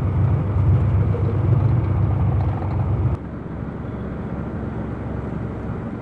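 A boat's engine running with a steady low drone, cut off suddenly about three seconds in, followed by a quieter, steady rush of choppy sea.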